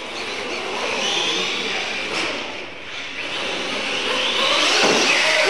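Electric radio-controlled monster trucks racing, their motors whining and rising and falling in pitch with the throttle, loudest near the end.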